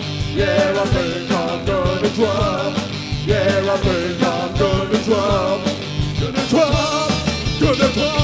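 Live rock band playing, with drums, bass and guitars under a wavering, repeating melody line.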